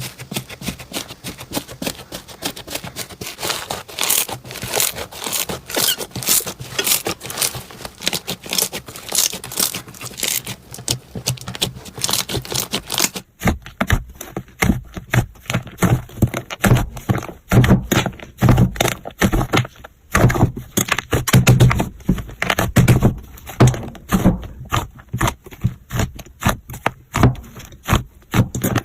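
Slime being squeezed and pressed by hand, a dense run of crisp crackling and popping. About halfway through it changes to a lower, deeper run of squishy pops and clicks.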